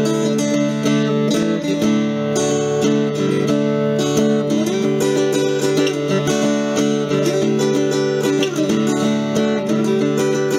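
A 1958 Martin 5-18, a small steel-string flat-top acoustic guitar, played with a flatpick: chords strummed and picked in a continuous run of notes.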